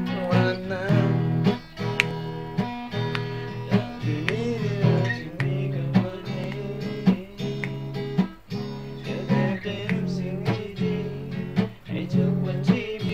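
Acoustic guitar strummed in a steady rhythm, with a voice singing along at times.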